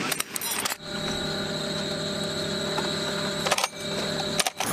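A steady mechanical hum with several even tones and a thin high whine, broken by short clusters of clicks in the first second, about three and a half seconds in, and just before the end.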